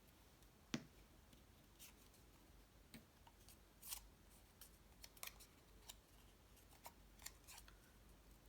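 Faint, scattered clicks and rustles of cardstock pieces being handled, with one sharper tap about a second in.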